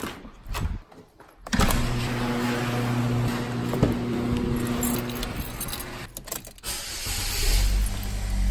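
A run of door and car sounds: a house door's knob clicks and the door opens, then several seconds of steady outdoor noise. A car door is knocked open and shut about six seconds in, and near the end the car's engine starts with a low rumble.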